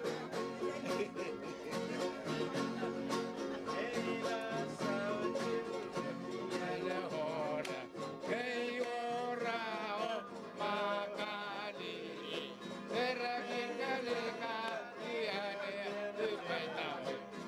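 Music: plucked or strummed string instruments keeping a quick, steady beat, with singing voices that come in about four seconds in.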